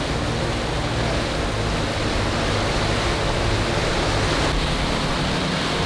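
Steady rushing noise of wind and water around a moving sailboat, with a faint low hum underneath.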